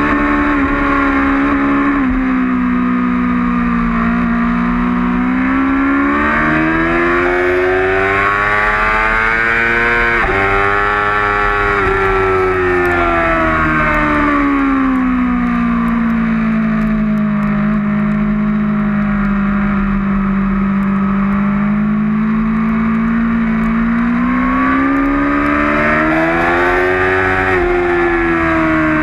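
2008 Yamaha R6's inline-four engine heard onboard at racing speed, its pitch climbing under acceleration and falling as the bike slows, twice over: rising for several seconds, dropping sharply about a third of the way in, sinking low, then rising again before falling near the end.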